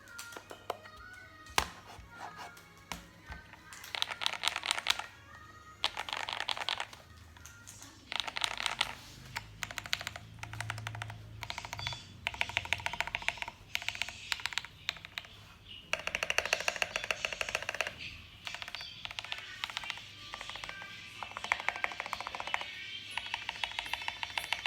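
Thocky mechanical keyboard being typed on in quick bursts of many keystrokes, each burst a second or two long with short pauses between, over background music.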